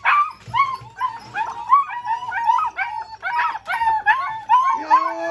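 A litter of black German Shepherd puppies whining and yipping, with many short high cries overlapping one another. Near the end, a longer, lower, steady cry sets in.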